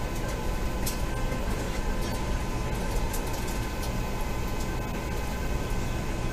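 Steady rumble and rush of an Acela Express train running along the track at speed, heard from inside the passenger car, with a faint steady whine over it.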